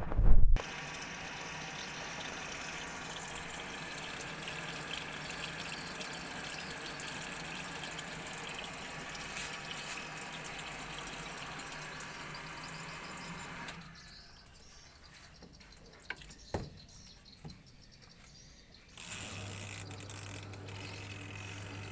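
A sharp knock, then water running steadily into a washing machine tub, stopping about two-thirds of the way through. After a few clicks, an electric motor starts near the end and runs with a steady low hum.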